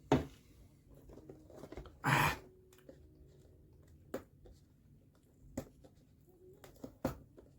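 Hands working at a cardboard box sealed with sticky tape: scattered sharp clicks and crinkles, with a louder short rasp about two seconds in.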